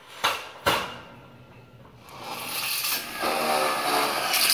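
Two sharp knocks, then a handheld power drill working into the steel base rail of a metal carport frame, a harsh grinding whine that builds over the last two seconds.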